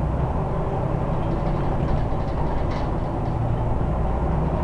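Scania Omnidekka double-decker bus heard from inside the passenger saloon while under way: steady engine and road rumble, with a few faint rattles near the middle.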